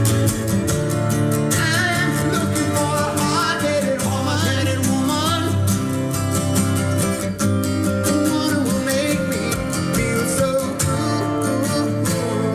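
Music with an acoustic guitar strummed in quick, steady strokes over low bass notes. A wavering melody line rises above it through the middle.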